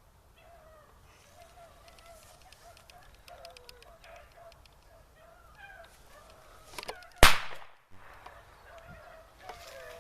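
A pack of beagles baying in the distance while running rabbits: a steady string of short, wavering yelps. About seven seconds in comes one sharp, loud bang.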